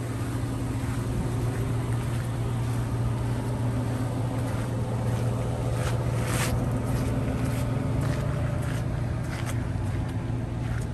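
Ford F-350 Super Duty's 5.4-litre gas V8 idling steadily. Scattered short crunches of footsteps on gravel sit over it, the clearest about six seconds in.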